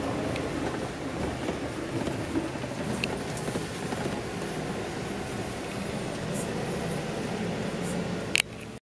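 Steady rumble and rattle of a Scania K410 double-decker coach on the move, with a few light clicks and a sharp click near the end before the sound cuts off suddenly.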